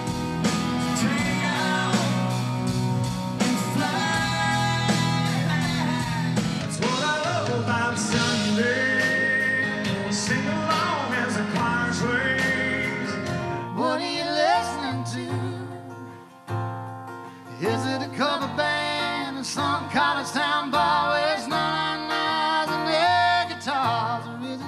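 Live country music: a male singer backed by a full band. About 14 s in it cuts to a sparser song with guitar and singing.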